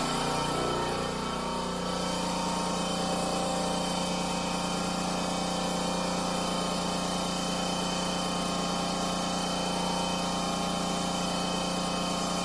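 Air compressor running with a steady hum while a car tyre is filled with air through its valve stem, up to about 38 psi.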